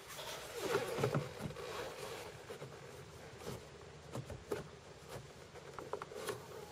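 Handling noise of a car door loudspeaker being pressed into its plastic door-panel opening and turned to line up with the screw holes: scattered soft knocks, light plastic clicks and scrapes, with rustling of a leather jacket sleeve.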